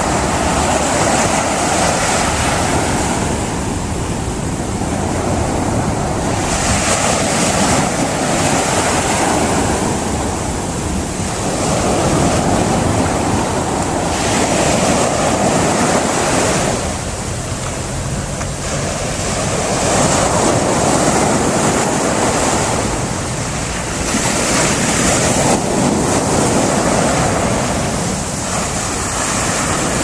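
Sea surf breaking on a pebble beach, the wash swelling and falling back every several seconds.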